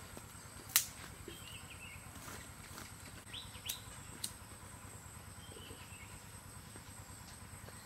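Quiet rural outdoor ambience: faint short bird chirps over a steady high hiss. There is one sharp snap about a second in and two lighter clicks around four seconds.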